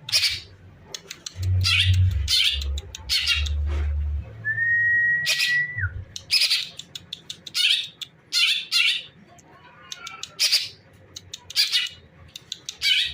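Green leafbird (cucak ijo) calling in an agitated, fired-up state: a rapid series of short, harsh chattering calls, with one long, clear whistle about four seconds in.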